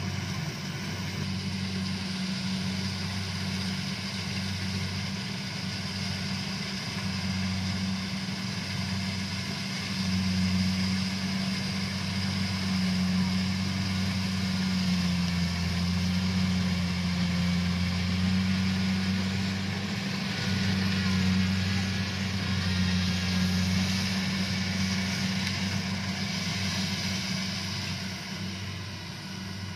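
Engine of a rice harvesting machine running steadily, with a steady low hum and a slight dip in pitch about halfway through.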